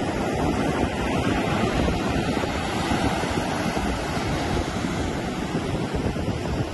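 Surf washing up a sandy beach, with wind buffeting the microphone; a steady, unbroken rush.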